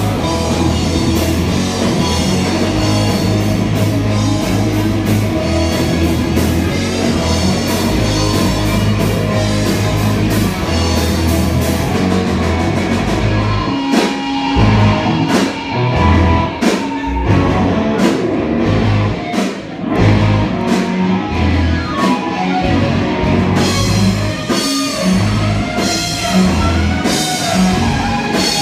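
Loud rock music with drum kit, bass and guitar. About halfway through, the full sound drops back to separate drum hits and bass notes with guitar lines.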